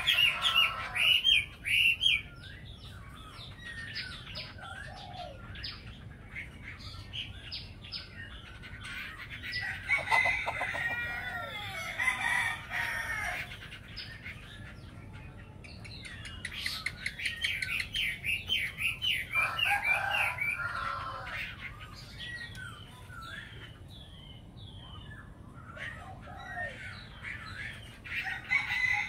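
Chinese hwamei song: loud bursts of rapid, varied whistled phrases lasting a few seconds each, separated by quieter gaps of several seconds.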